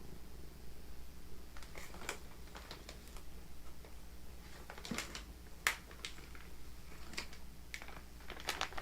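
A pet eating food: irregular small crunches and clicks.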